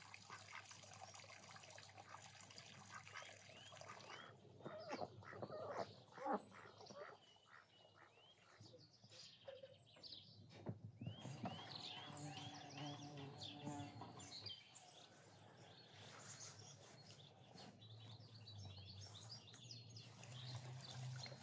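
Faint outdoor birdsong: small birds chirping in runs of short rising notes, with a few louder duck calls about six seconds in.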